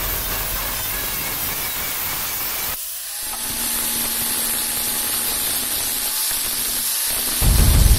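Makita angle grinder with a thin cut-off disc cutting through steel plate: a steady hiss of disc on metal. About three seconds in, after a cut, an angle grinder with a grinding disc works the steel guard held in a vise: steady hiss over a faint, even motor whine.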